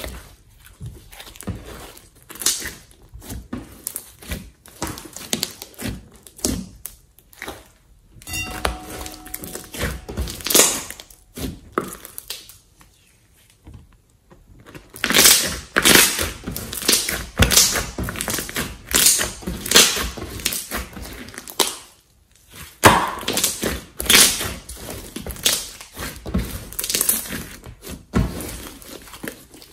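Hands squishing, poking and stretching thick slime, giving irregular sticky clicks and pops, with a brief lull about halfway through.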